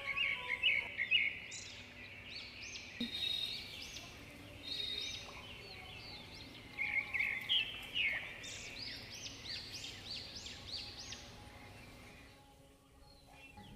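Several birds chirping in a busy chorus of quick high chirps, thinning out around the middle, then busy again before stopping about two seconds before the end.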